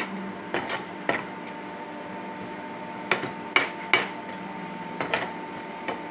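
Perforated metal skimmer knocking and scraping against a pan while stirring onions frying in ghee: about ten sharp clinks in irregular clusters, over a steady background hum.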